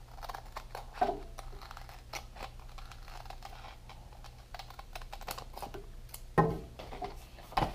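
Cheap paper scissors cutting through skateboard grip tape: an irregular run of small snipping clicks and crunches, with a couple of louder knocks near the end.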